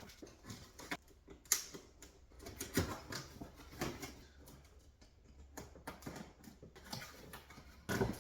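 Scattered clicks, knocks and rustling from a portable tyre air compressor being unpacked and handled, with a sharper click about a second and a half in.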